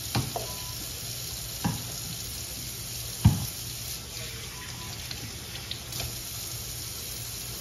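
Kitchen faucet running a thin, steady stream into a stainless steel sink, with a few short knocks from things being handled; the loudest knock comes about three seconds in.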